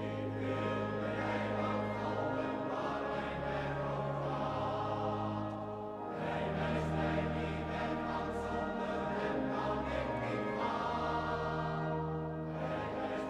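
Large men's choir singing sustained chords in a reverberant church, over long held low notes; the phrase changes about six seconds in and again near the end.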